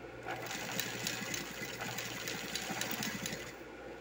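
Frufruzeira ruffling sewing machine stitching a ruffled helanca strip onto a rug base, its needle running in a fast, even rhythm. It picks up a moment in and stops near the end.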